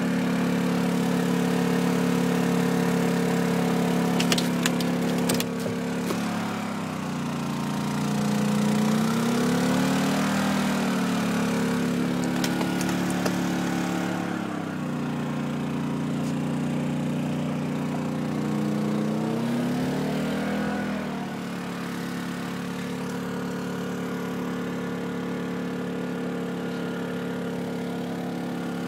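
Small engine running steadily with an even hum. Its pitch sags and recovers twice, around the 8–11 second mark and again around 19–21 seconds. A few light clicks come about four to five seconds in.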